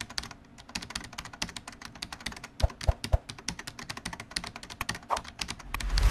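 Fast, irregular clicking much like keyboard typing, roughly ten clicks a second, with a few low thuds about three seconds in and a low rumble swelling near the end.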